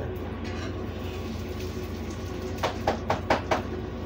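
A utensil rapped five times in quick succession against a metal baking pan, over a steady low background hum.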